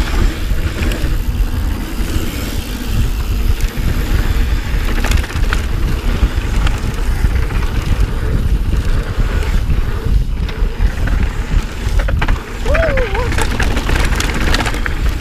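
Heavy wind rumble on a handlebar-mounted action camera's microphone as a Santa Cruz Hightower Plus mountain bike descends a dirt trail at speed, its tyres rolling over packed dirt and the bike clattering over bumps.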